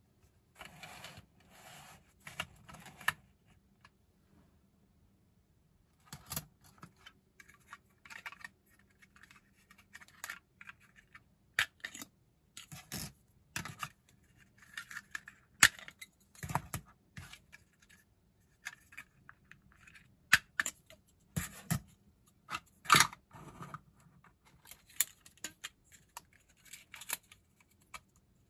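3D-printed plastic parts being handled on a tabletop: scattered clicks, taps and short scrapes as pieces are fitted together, slid apart and set down, with a quiet pause a few seconds in.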